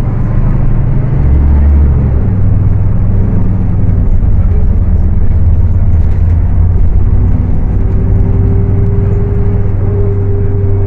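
Scania K310UA city bus's five-cylinder diesel engine running, a steady low rumble; a thin higher whine comes in about eight seconds in.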